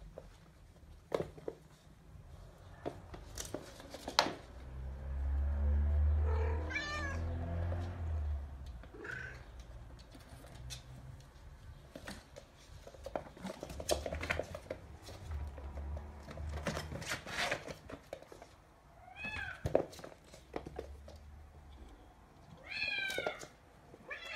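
Bengal kittens mewing: short, high-pitched meows scattered through, two close together near the end, over the scattered clicks and knocks of kittens scrabbling on a wooden floor. Bouts of low rumbling noise come and go, loudest early on.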